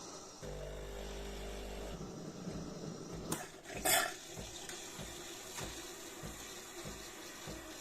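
De'Longhi Dinamica Plus bean-to-cup espresso machine starting a cappuccino: its pump comes on with a steady hum, then runs in an irregular pulsing rhythm, with two short, loud hisses about three and four seconds in.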